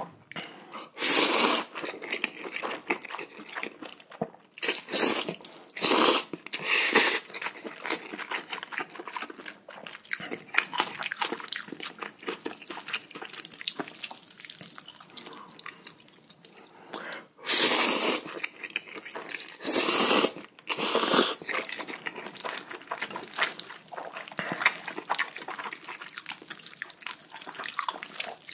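Close-miked eating of cold spicy noodles: wet chewing and mouth smacks throughout, broken by several louder slurps of noodles, in a cluster around five to seven seconds in and again around seventeen to twenty-one seconds in.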